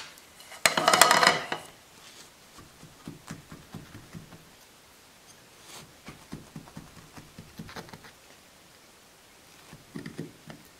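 Knife cutting down through a hard, overbaked cornbread in a cast-iron skillet: faint scratching, crunching ticks as the blade goes through the crust, after one louder scraping clatter about a second in.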